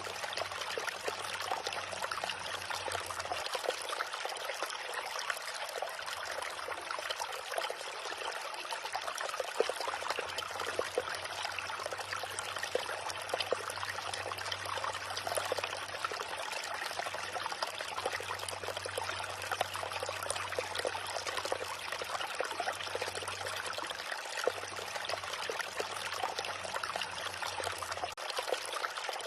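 Small river running steadily over stones, a continuous babbling and trickling of water.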